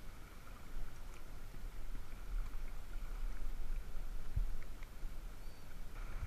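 Shallow seawater lapping and sloshing around a wading angler, heard as a low, uneven rumble with a few small clicks and a soft knock a little after four seconds.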